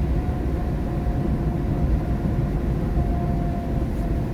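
Steady low road and engine rumble heard inside a car's cabin at highway speed, with a faint steady hum running under it.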